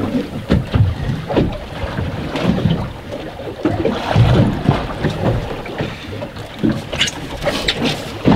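Wind buffeting the microphone and waves slapping against a small boat's hull, in irregular low thumps, with a few sharp clicks about seven seconds in.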